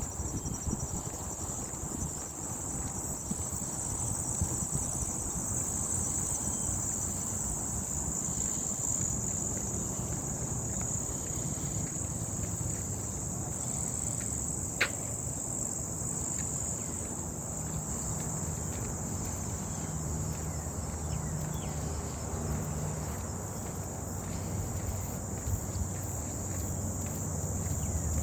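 Steady chorus of insects, a continuous high-pitched trill. A single sharp click about halfway through.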